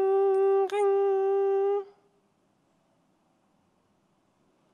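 A woman's voice imitating a ringing telephone, holding a long 'riiing' on one steady pitch. It breaks once, a little under a second in, and stops about two seconds in.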